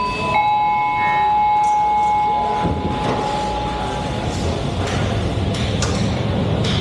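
A two-note chime, a higher note then a lower one, each ringing out and fading over a few seconds. Under it runs a steady factory-floor noise with a few scattered knocks.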